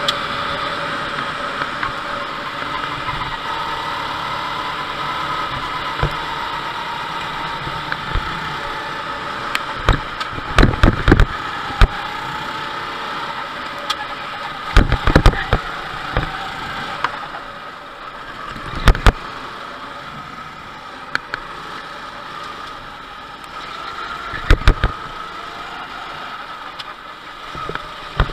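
Go-kart engine running on track, its pitch rising and falling with the kart's speed through the corners, heard from onboard. Several loud sharp knocks break in, in clusters about ten, fifteen, nineteen and twenty-four seconds in.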